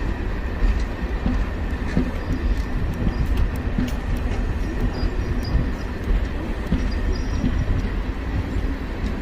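Diesel-electric multiple unit (DEMU) train moving off: a steady low rumble with scattered sharp clicks.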